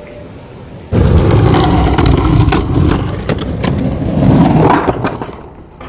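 Skateboard wheels rolling over rough asphalt close by: a loud rumble with small clicks from cracks and grit, starting suddenly about a second in, swelling as the board passes and then fading.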